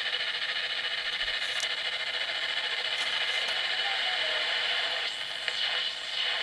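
Home-built slug-tuned shortwave receiver's speaker giving a steady hiss of band noise with a weak distant station buried in it. The signal is quick fading, rising and sinking into the noise because the set has no fading compensation, and a few faint clicks of static cut through.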